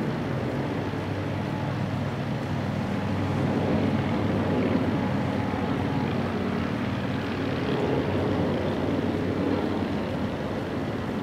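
A steady low motor hum from a vehicle running.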